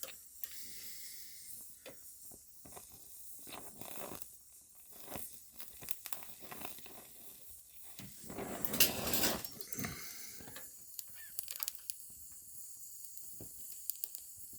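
Arc welding with a small stick rod on thin sheet metal: irregular crackling with scattered clicks, and a louder, longer burst of crackle about nine seconds in.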